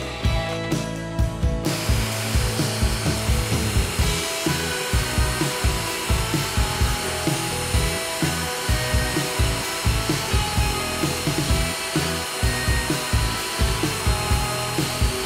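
Bosch PBD 40 drill press running and boring a row of holes into plywood, its steady motor and cutting noise starting about two seconds in, under background music with a steady beat.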